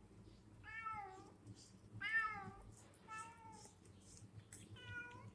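Domestic cat meowing four times, about a second apart, the second meow the loudest.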